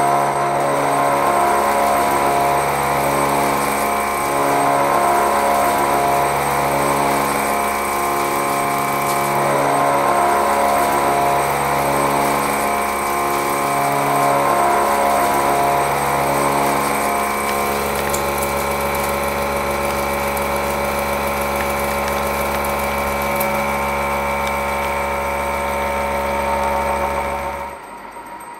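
A 125 mm Seco 335.25 disc milling cutter machining a half side-and-face slot in C45 steel: a steady whir of many tones with a low throb that comes and goes. It stops abruptly near the end.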